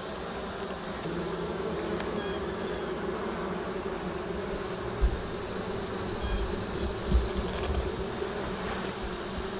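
Honeybees buzzing steadily from an open hive, with a few low thumps around the middle.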